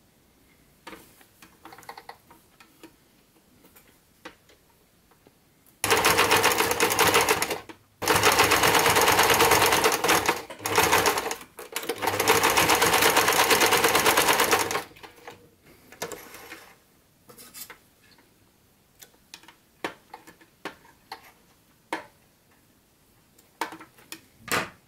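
Electric sewing machine running in bursts, zigzag-stitching around the edge of a fabric mask. It starts about six seconds in, stops briefly a few times and halts for good about fifteen seconds in. Before and after, only faint scattered clicks.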